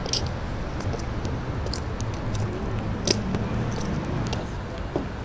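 Irregular footsteps scuffing on cobblestones, short sharp crunches every second or so, over a steady low background hum.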